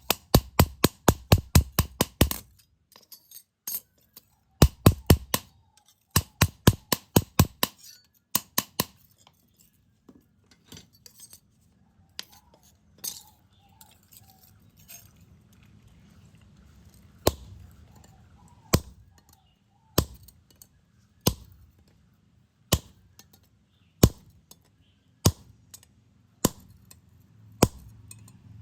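Hammer blows ringing on metal: quick runs of about four or five strikes a second during the first nine seconds, then single blows about a second and a half apart over a faint low hum in the second half.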